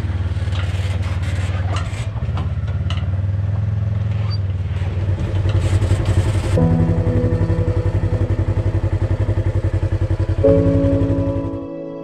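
Polaris RZR XP side-by-side's engine running with a steady low pulse, with some clattering in the first few seconds. Background music comes in about halfway and carries on after the engine sound stops just before the end.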